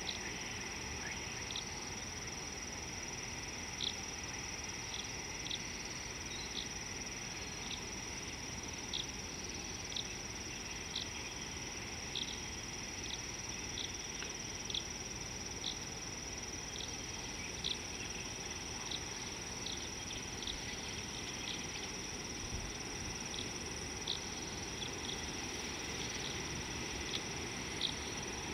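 Night-time insect chorus: a steady high drone and hiss with short, high chirps about once a second at uneven spacing, over a low background rumble.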